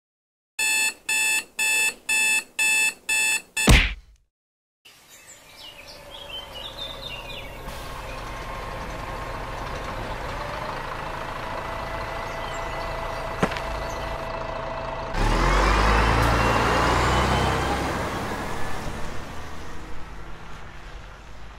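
Digital alarm clock beeping seven times in a fast, even pattern, cut off by a thump. After a short silence comes steady road-traffic noise, with a louder vehicle passing about two thirds of the way through.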